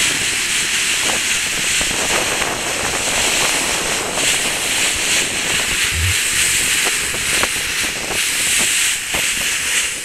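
Steady loud rushing hiss of sea water breaking along a moving cargo ship's bow, mixed with wind, with a brief low thud about six seconds in.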